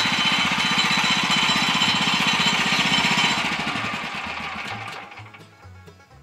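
Portable bandsaw sawmill's gas engine running hard with a fast, even firing beat and a loud hiss from the blade at work. It starts abruptly and fades away over the last couple of seconds.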